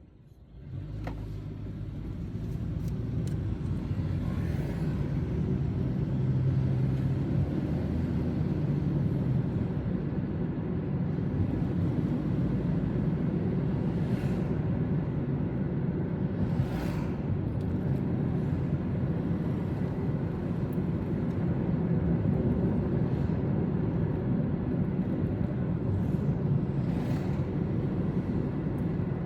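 A car driving on city streets: steady engine and road noise, mostly a low hum. It rises over the first couple of seconds, and a few brief swells of hiss come through.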